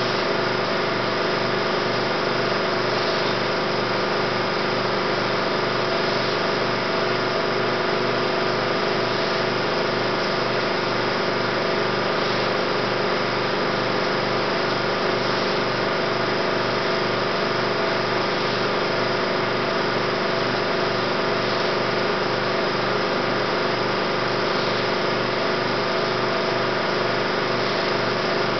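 A 16mm film projector running: a steady mechanical whir and hum of several fixed tones that does not change.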